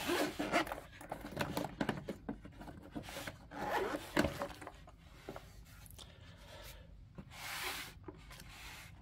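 Zipper of a fabric-covered hard-shell carrying case being drawn around the case's edge in a run of short rasps, with rubbing and scraping as the case is handled, and a longer rasp near the end as the lid opens.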